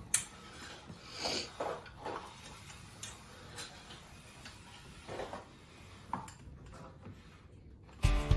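Scattered light knocks and clicks, with a brief scrape about a second in, from a KitchenAid bowl-lift stand mixer being slid across a countertop on a sliding mat, its steel bowl and loose whisk rattling. Guitar music comes in near the end.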